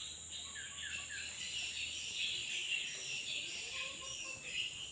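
Steady high insect chorus of crickets, with a few short bird chirps about half a second in.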